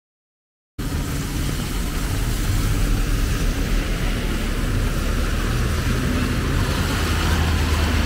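Silence, then about a second in a street-traffic soundscape cuts in: a steady low hum of vehicle engines running close by, over an even hiss from a rain-wet street.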